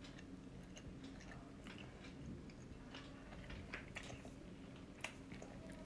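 Faint close-up chewing of a mouthful of parotta flatbread and dry-fried beef roast, with irregular small wet clicks and a sharper click about five seconds in.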